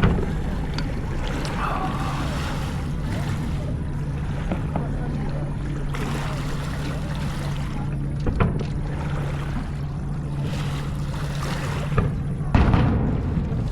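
Steady low motor hum over a wash of noise, broken a few times by dull thumps, the loudest about twelve and a half seconds in.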